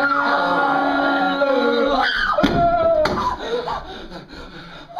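A man's long held yell, sliding down in pitch about two seconds in, while he grabs and shoves a plastic-and-metal classroom chair. A couple of sharp knocks follow from the chair, then laughter.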